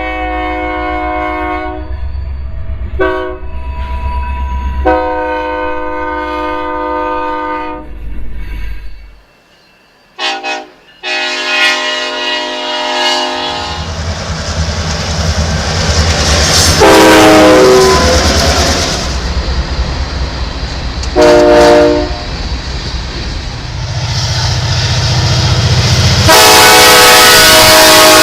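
Locomotive air horn sounding a horn salute in a series of blasts, short and long, the longest held about three seconds, over the low rumble of the locomotive. After a brief drop-out at a cut, another train horn blasts several times as the train passes with a steady rushing rail noise.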